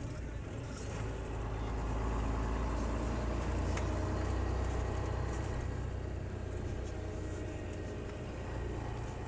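Volvo F12 truck's diesel engine running at low speed, heard from inside the cab as a steady low drone; it pulls a little harder about two seconds in, then eases off.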